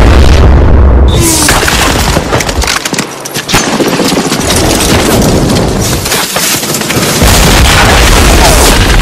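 Battle gunfire: dense rapid rifle shots over heavy booming explosions, the low rumble easing briefly about three seconds in and again around six seconds before building back up.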